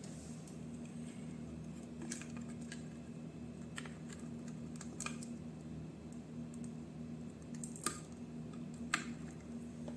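Scattered small clicks and taps of wires and a plug connector being handled and pulled off a battery pack's BMS circuit board, over a steady low hum.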